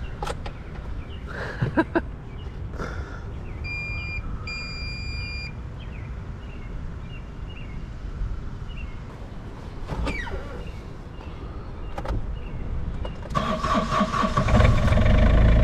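Mini excavator being started: a high electronic beep sounds twice around four seconds in, then about thirteen seconds in the engine cranks, catches and runs loud and steady.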